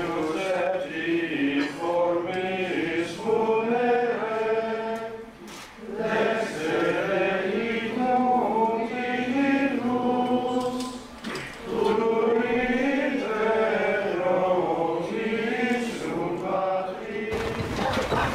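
A roomful of people singing together in three long phrases, with short pauses about a third and two thirds of the way through.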